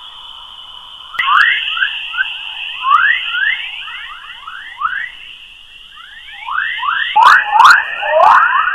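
Sonified recording of electromagnetic waves in Earth's magnetic field, converted to audio. It is heard as rapid, overlapping chirps over a steady high whistle, with a few sharp clicks near the end.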